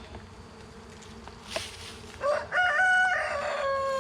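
Honey bees humming steadily around an opened hive, with a short click about one and a half seconds in. About two seconds in, a rooster crows once, loud over the hum, its pitch falling at the end.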